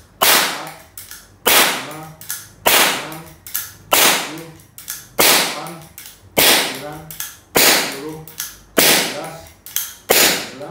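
AP50 4.5 mm PCP air pistol firing shot after shot: nine sharp shots at an even pace of about one every 1.2 seconds, each preceded shortly by a lighter click.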